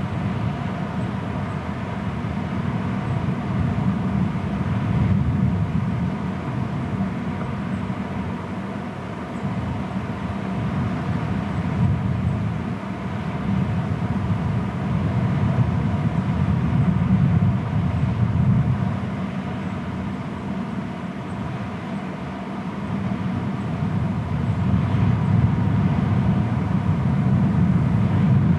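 Low wind rumble on an outdoor nest camera's microphone, swelling and easing every few seconds.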